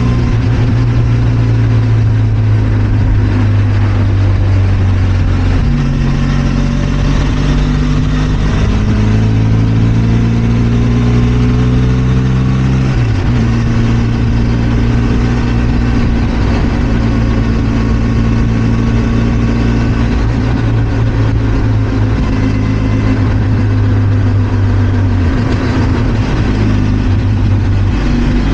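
Benelli TRK 502 X's parallel-twin engine running under way, with a steady note that steps to a different pitch several times as the rider changes throttle or gear.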